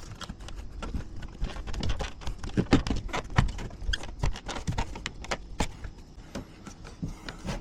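Irregular clicks, taps and knocks of hard objects being handled and set against one another, several a second, loudest around the middle.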